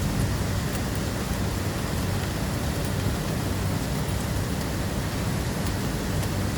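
Heavy rain falling steadily, a constant hiss with a deep rumble underneath.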